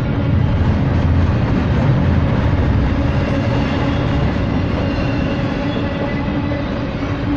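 Norfolk Southern freight train rolling past: a steady, loud rumble of wheels on rail that eases slightly near the end.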